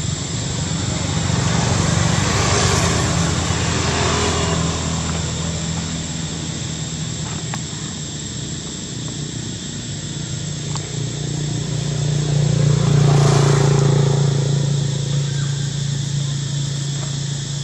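Low engine hum that swells louder and fades twice, about two seconds in and again around thirteen seconds in, like motor vehicles passing.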